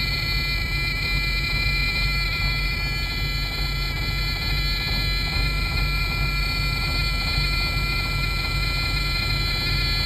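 Detroit Diesel Series 60 inline-six diesel running steadily at idle, just started after a new timing reference (crank) sensor cured its crank-but-no-start. Over it the truck's low air pressure warning buzzer sounds continuously, a sign that the air tanks have not yet filled.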